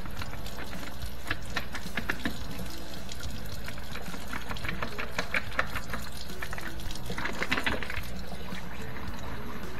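Water splashing and gurgling, with scattered small clicks and a denser patch of splashes about seven seconds in, as a dishwasher's rinse-aid dispenser is flushed out with water to clear dried rinse aid thought to be clogging it. A steady low hum runs underneath.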